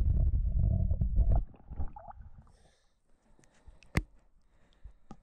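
Low muffled rumble of water heard through a camera's microphone held underwater, cutting off sharply about a second and a half in. After that it is quiet, with a few sharp clicks and taps, the loudest about four seconds in.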